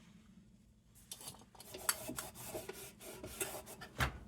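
Faint, irregular rubbing and scraping strokes on a metal lantern as it is wiped down after a spray-on protective treatment, starting about a second in.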